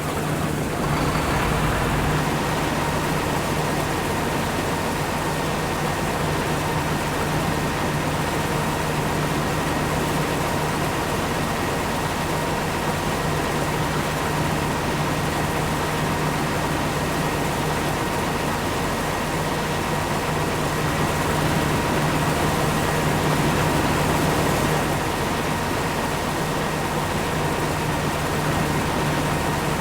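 Corn-harvesting farm machinery running steadily: a heavy engine drone with a constant high whine over it.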